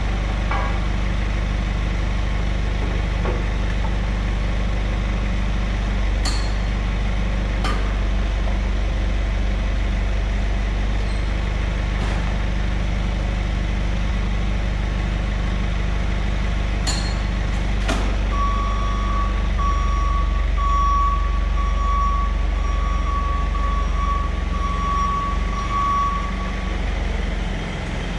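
A vehicle engine running steadily, with a few sharp clicks and knocks. About eighteen seconds in, a reversing alarm starts beeping about once a second and stops near the end.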